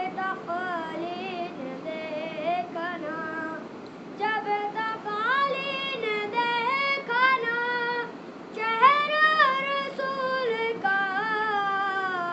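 A boy singing a naat, an Urdu devotional poem in praise of the Prophet, unaccompanied. He sings long, ornamented melodic phrases that climb to their highest and loudest a little past the middle, then fall away.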